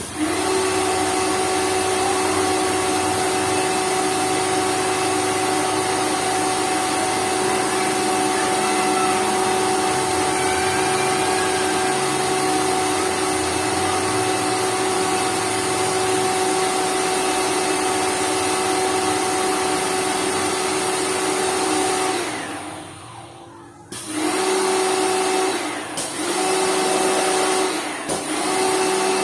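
Lakoni Laguna 70 electric pressure washer motor running with a steady whine, dying away about 22 seconds in, then starting up again about two seconds later and cutting out briefly twice more.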